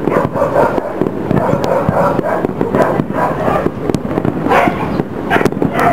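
Aerial fireworks shells bursting, with sharp pops over a constant crackle, and a dog barking repeatedly in the second half.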